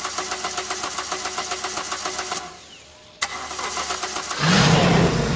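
DeLorean DMC-12's engine being cranked over by its starter in a rapid, even rhythm that cuts off abruptly without catching. After a short pause it cranks again, and about a second later the engine fires and runs loudly.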